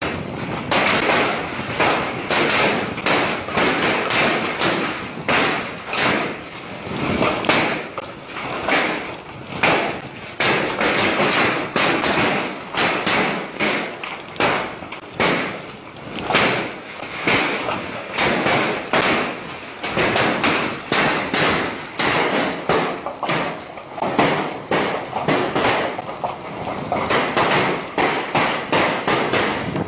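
Heavy hail pelting down, a dense, irregular clatter of hailstones striking hard surfaces without a pause.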